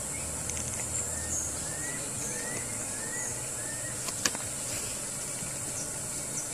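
Outdoor ambience: a steady high hiss with a low hum beneath it. A bird calls a run of short rising chirps, about two a second, from about a second and a half in. A single sharp click sounds a little past the middle.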